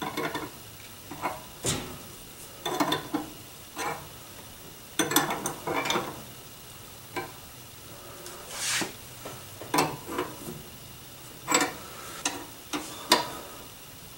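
Wrench clinking and scraping on a brake-line tube nut at the brass distribution block as the rear brake line is tightened: scattered, irregular metal clicks, with a brief rustle a little past halfway.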